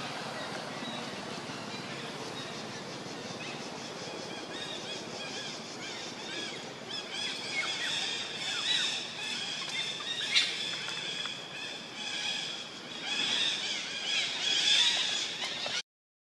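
Outdoor ambience with a steady background hiss. From about seven seconds in, high-pitched chirping and squeaking animal calls come and go. The sound cuts out for about half a second near the end.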